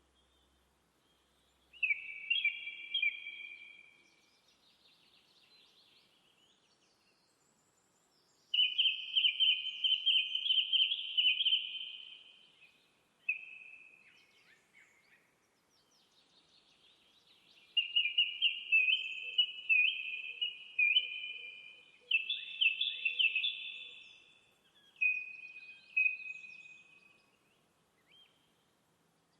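A small bird singing in phrases of rapid repeated chirping notes, high in pitch, about five phrases of one to six seconds each with quiet pauses between them.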